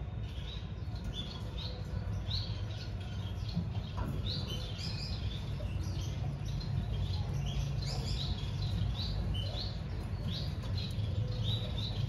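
Finch chirping: short high-pitched calls repeated every half second or so, over a steady low hum.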